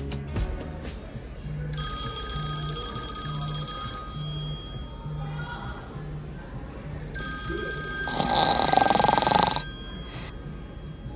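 Smartphone ringtone ringing in two stretches of steady, multi-tone chiming over background music with a steady low beat. A louder, noisy sound joins the second stretch of ringing about eight seconds in.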